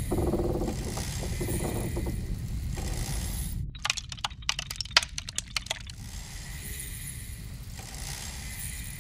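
A low rumble, then for about two seconds in the middle a rapid flurry of sharp metallic clicks and clinks, which fades to a faint hiss.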